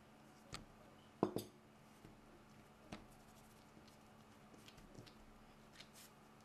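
Soft knocks and taps of hands kneading a soft flour dough on a silicone baking mat, a few scattered strokes, the loudest a quick double knock about a second in.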